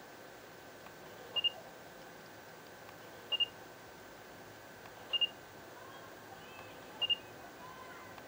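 Samsung NX10 camera's focus-confirmation beep: a short high double beep, four times at about two-second intervals, signalling that autofocus has locked. A faint tick comes about half a second before each beep.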